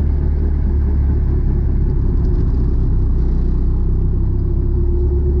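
Piston-engine helicopter running during warm-up just after a cold start, its rotor blades turning: a loud, steady low drone. A faint steady whine comes in near the end.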